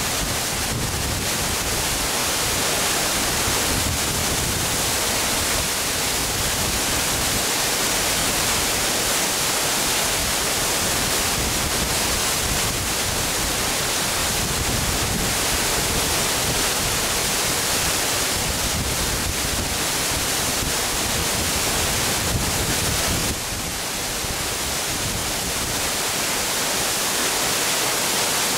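Large waterfall plunging into its basin: a steady, dense rush of water, with a slight drop in level a few seconds before the end.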